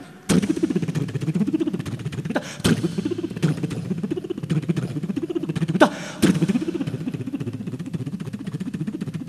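Fast solo percussion: rapid strokes over a low pitch that swoops up and down, broken by a few sharp, louder slaps.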